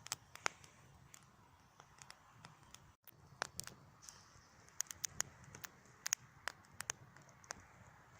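Small wood campfire crackling, with irregular sharp pops and snaps over a faint hiss.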